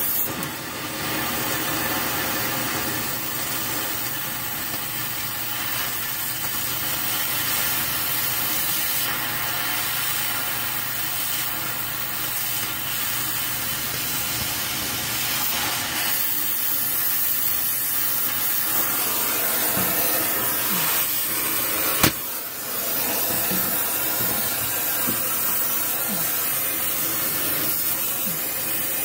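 Oxy-fuel cutting torch hissing steadily as it cuts through a rusted exhaust pipe, with one sharp pop about three-quarters of the way through.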